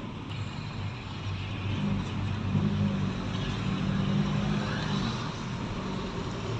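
A car engine running, a steady low hum with road or traffic noise, somewhat louder in the middle.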